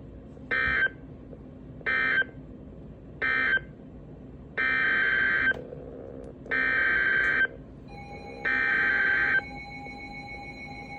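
Emergency Alert System SAME digital data bursts from a NOAA Weather Radio broadcast, a harsh electronic warble. Three short bursts close the previous warning as the end-of-message code, then three longer bursts carry the header for the next warning. A faint steady tone comes in near the end.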